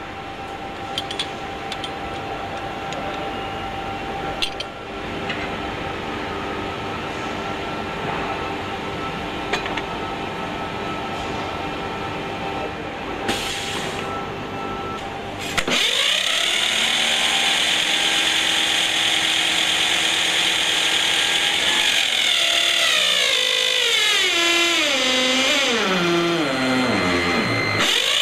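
A heavy-duty Delco Remy starter motor run on an automatic test bench. A steady machine hum with light clicks gives way about halfway through to the starter spinning up with a loud high whine, which holds and then falls in pitch in steps over the last several seconds as it is loaded for the torque test.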